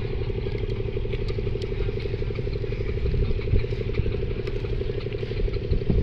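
An engine idling steadily, an even drone with a fast fine pulse that does not change, with a few light clicks over it.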